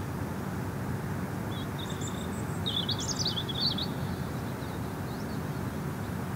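A bird chirping in a quick series of high notes from about two to four seconds in, over a steady low outdoor background noise.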